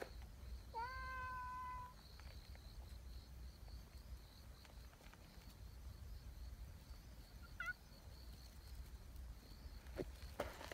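A cat gives one long meow, rising at the start and then held level for about a second.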